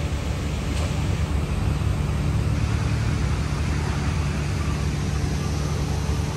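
Steady urban background noise of city traffic: an even rumble with a low hum running through it.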